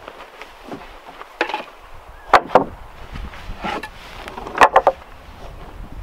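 Sawn wooden boards knocking against each other as they are handled and stacked: several sharp wooden clacks, some in quick pairs.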